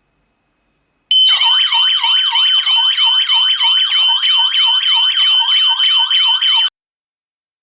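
Home burglar alarm siren sounding, a fast warble of falling sweeps, about four a second, over a steady high tone. It starts about a second in and cuts off suddenly after about five and a half seconds.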